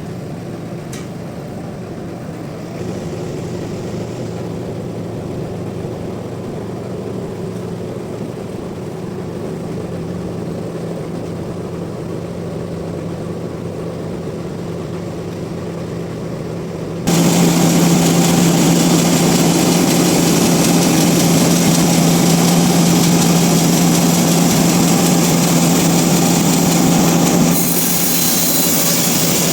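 Sawmill machinery running with a steady low hum. About two-thirds of the way through it turns suddenly much louder and harsher, with dense noise across the whole range, and changes character again near the end.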